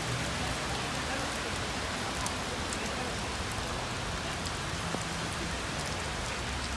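Rain falling steadily onto a flooded street and wet pavement: an even hiss with a few faint drop ticks.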